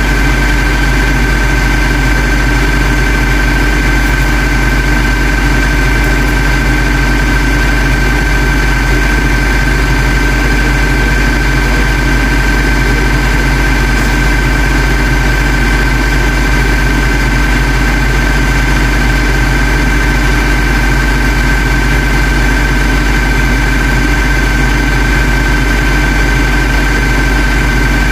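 Truck engine running steadily: a constant low drone with a steady high tone over it, unchanging throughout.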